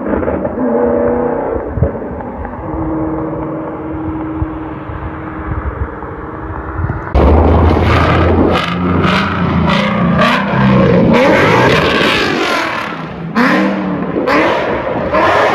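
Ford Mustang GT's Coyote 5.0 V8 exhaust, with long-tube headers, an X+H pipe and no mufflers or resonators. It runs steadily and sounds muffled at first. About seven seconds in it turns suddenly louder and clearer, with a deep low drone, then revving up and down with a run of sharp pops from its burble tune.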